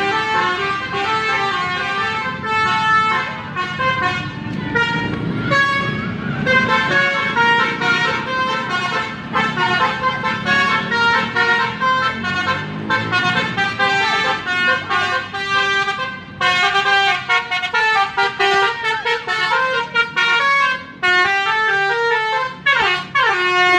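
A bus's telolet 'basuri' musical horn playing a quick melody of stepped horn notes, several tones sounding together and changing pitch every fraction of a second. The pitch slides near the end. A low rumble sits underneath in the first half.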